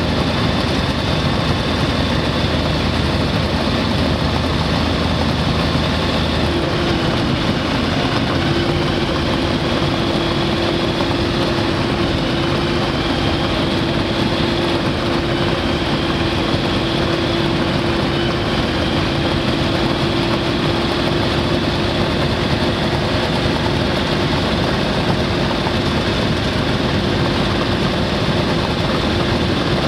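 Single-engine light aircraft's piston engine and propeller running steadily while taxiing, heard from inside the cockpit. The engine note shifts slightly about seven seconds in, then holds a steady hum.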